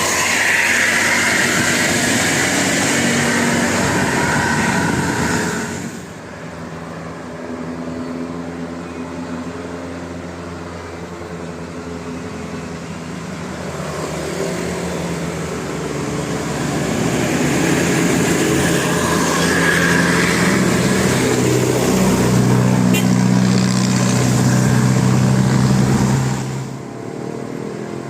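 Large road vehicles, trucks or buses, running past with their engines droning. The sound is loud for the first six seconds, then quieter, then builds again to a loud passage from about 17 to 26 seconds that drops off suddenly.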